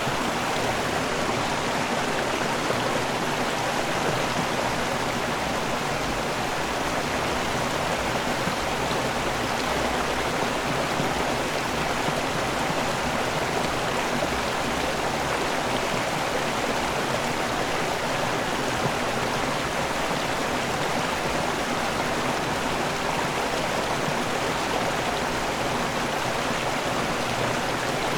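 River water rushing over a waterfall in a steady, unbroken wash.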